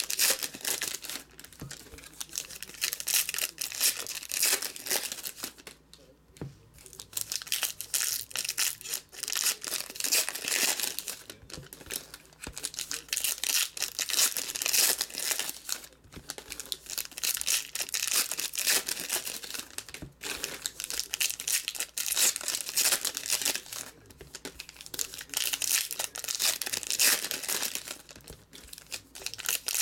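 Foil trading-card packs (Panini Contenders basketball) being torn open and their wrappers crinkled, over and over, with short pauses between packs.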